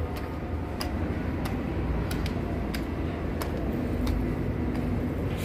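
Footsteps: hard-soled shoes clicking on stone steps and paving, about two steps a second, over a steady low outdoor rumble.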